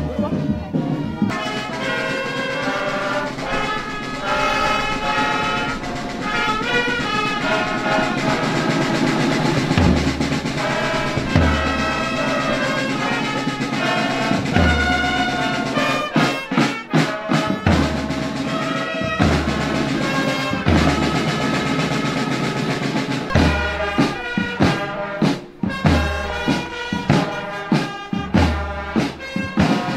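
Brass band playing an anthem, its melody carried by trumpets and trombones. A bass drum beats about once a second from about ten seconds in.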